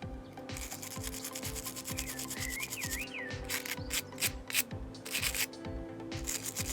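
Quick, repeated rubbing strokes of scrubbing corrosion off the small metal contacts and pins of a central-locking door connector.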